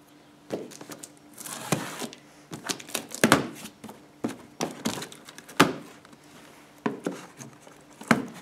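A small knife slitting the tape and cardboard of a cardboard box, with scraping strokes, rustling cardboard and irregular sharp knocks as the box is handled.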